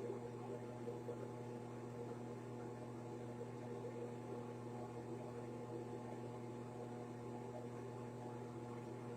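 Steady electrical mains hum, a low buzz with several overtones that does not change.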